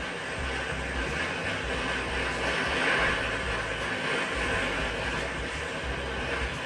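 Handheld gas torch burning with a steady rushing hiss, heating a seized, never-before-loosened part of an engine to break it free.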